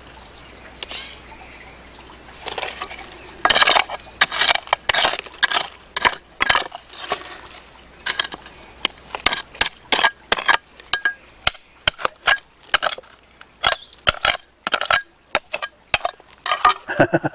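Small hand hoe digging into stony soil: repeated sharp strikes and scrapes against earth and stones, irregular, about two a second. The strikes start about two and a half seconds in.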